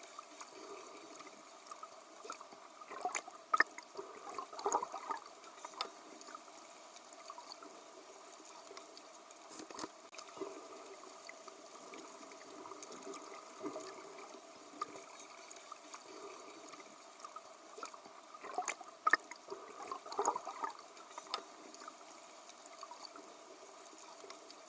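Faint water sounds, trickling and bubbling, with irregular small clicks and splashes that swell now and then.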